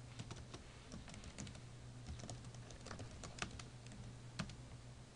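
Computer keyboard typing: irregular key clicks, with two sharper, louder keystrokes in the second half, over a low steady hum.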